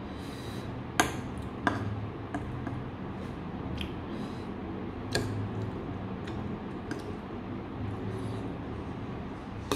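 Metal spoon clinking against a ceramic bowl and a stainless steel bowl while eating: about seven separate clinks, the sharpest about a second in and another right at the end, over a steady low hum.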